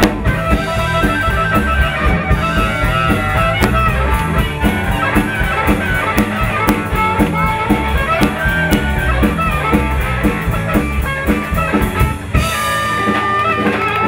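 Live electric blues band playing an instrumental passage: electric guitars, bass and drum kit, with amplified blues harmonica played into a hand-held microphone. Near the end the beat drops away while notes ring on.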